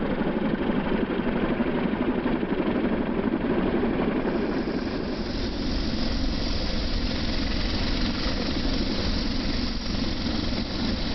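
Light helicopter, the MH-6 Little Bird, running with steady rotor and engine noise and a strong low rumble.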